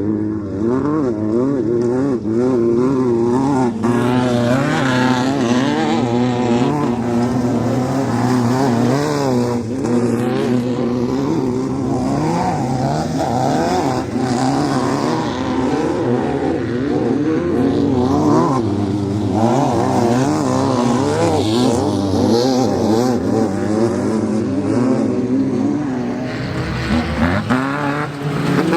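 Class 5-1600 off-road race car's air-cooled 1600 cc VW flat-four running hard. Its revs swing up and down rapidly and continuously.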